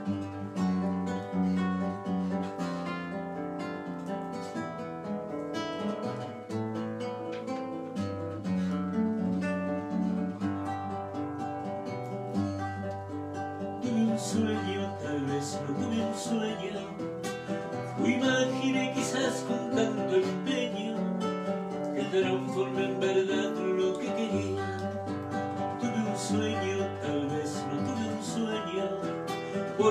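Acoustic guitar played live, strummed and plucked chords of a song with a moving bass line.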